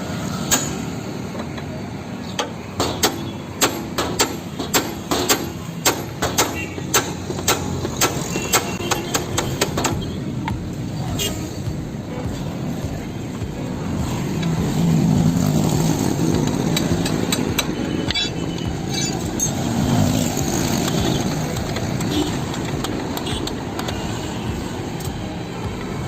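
Hammer blows on a car's bent lower control arm, sharp metal strikes about two a second for roughly the first ten seconds, knocking the jammed arm free. A steady low rumble follows in the second half.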